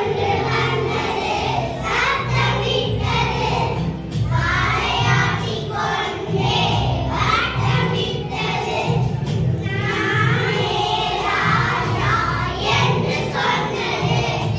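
Music with a group of voices singing over a steady, repeating bass line.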